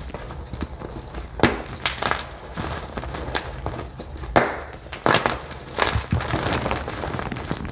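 Dry dye blocks crunching and crumbling as fingers squeeze and rub them into powder: a string of sharp crunches about a second apart, with soft crumbling between.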